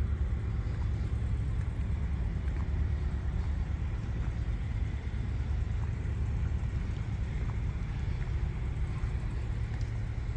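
An engine running steadily at an even, low rumble.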